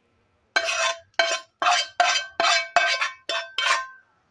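Steel spoon scraping cooked semolina out of a non-stick frying pan into a steel plate: about eight quick scrapes and knocks, each with a short metallic ring, stopping just before the end.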